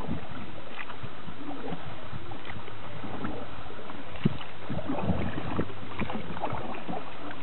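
Wooden canoe being paddled: paddle blades dipping and pulling through the water with small splashes and light knocks against the wooden hull, over steady water noise, with one sharper knock about four seconds in.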